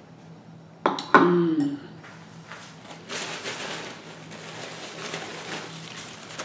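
A sharp click about a second in and a brief falling mouth or voice sound. Then, from about three seconds in, the steady rustle of a napkin being shaken out and wiped over hands and face.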